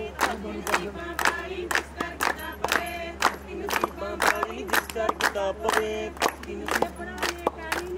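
A group of voices singing and calling out Punjabi folk verses over rhythmic hand clapping.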